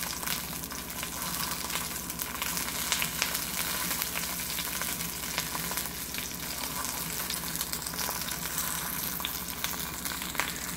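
Steak searing in bacon fat in a cast-iron skillet: a steady sizzle with frequent small crackles and pops of spattering fat.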